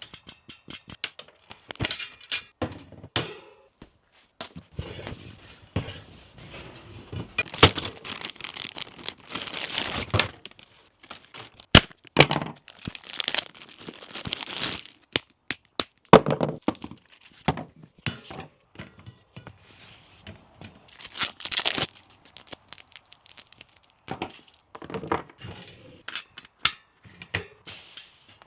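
Hands working on a bicycle tire and wheel: irregular sharp clicks and knocks, with several bursts of scraping and rubbing lasting a second or two.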